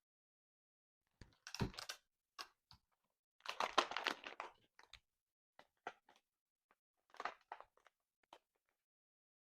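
Packaging being handled and crinkled, with scattered light knocks and taps; a sharper knock about a second and a half in, and a longer stretch of crinkling about four seconds in.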